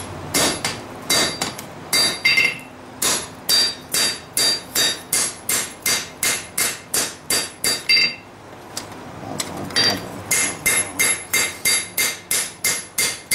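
Blacksmith's hand hammer striking a hot steel lawnmower blade on an anvil at about three blows a second, each blow ringing. The hammering is forging a step and cleaning up the back of a kukri blade. It stops for about two seconds past the middle, then resumes at the same pace.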